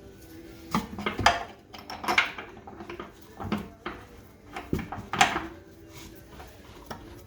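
Scattered clanks and knocks of tools and metal suspension parts being handled, about half a dozen irregular hits over several seconds.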